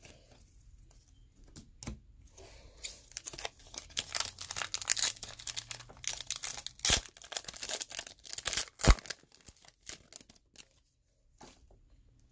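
Foil wrapper of a Score football card pack being torn open and crinkled, with a couple of sharp snaps near the end.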